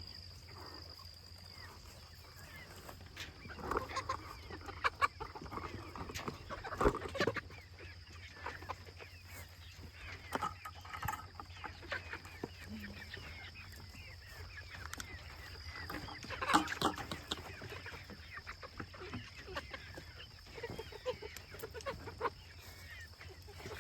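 Young chickens clucking and calling on and off, with a few louder calls scattered through, over a faint steady high tone.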